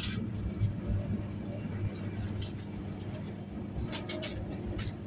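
A steady low mechanical hum, like an engine running, through scattered short scrapes and clicks.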